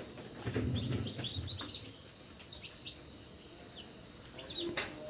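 Newly hatched chicks peeping in short, high, falling notes inside a fridge incubator, over a steady high chirping that pulses about four to five times a second.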